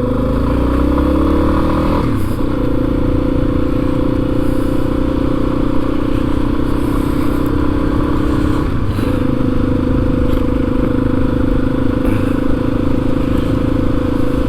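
Yamaha XT250's single-cylinder four-stroke engine under way on the road, rising in pitch for about two seconds and then dropping back through a gear change into steady running. There is a short dip in engine pitch about nine seconds in.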